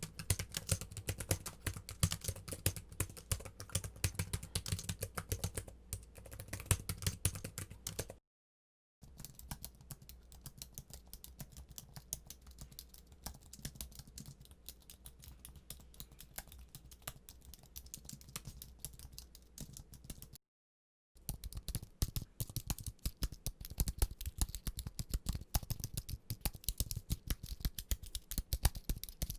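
Rapid typing on computer keyboards, a dense run of key clicks, in three separate recordings divided by two short breaks of silence. The middle recording, from about 9 to 20 seconds in, is quieter than the other two.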